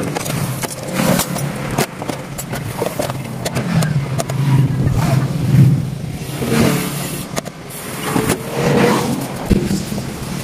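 A Toyota 4K four-cylinder petrol engine running, its sound swelling and easing every second or two, with scattered clicks and knocks over it.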